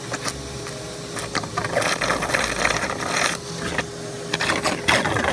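Small electric motor of the water-suction setup running with a steady hum, drawing water through a hose, with scattered knocks and handling noises over it.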